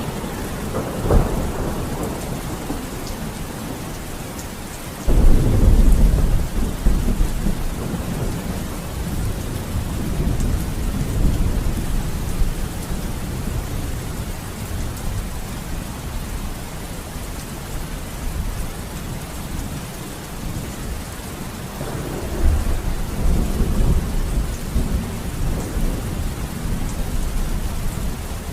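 Thunderstorm with steady rain. A short crack of thunder about a second in, then a sudden loud thunderclap about five seconds in that rolls on as a low rumble for several seconds, and another rumble of thunder near the end.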